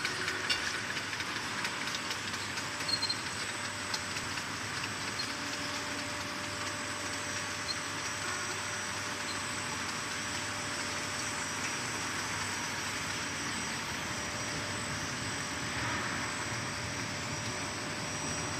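Glass-bottle filling line running: the rotary bottle table and slat-chain conveyor give a steady mechanical whir with a constant hum and a thin high whine. A few short sharp clicks come in the first few seconds, typical of glass bottles knocking together on the line.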